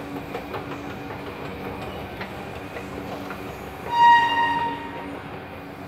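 Escalator running: a steady low hum with light scattered clicking. About four seconds in, a single loud high tone lasting about a second rings out over it.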